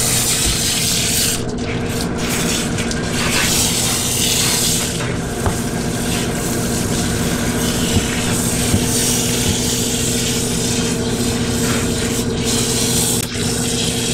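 Dog bathing system spraying water and shampoo into a dog's wet, dense double coat: a steady hiss of spray with a steady low hum underneath.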